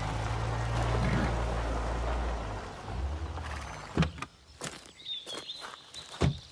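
Volkswagen Tiguan SUV running with a low steady rumble as it rolls over gravel, dying away a little before three seconds in. About four seconds in there is a sharp thump, followed by scattered light knocks and a few bird chirps.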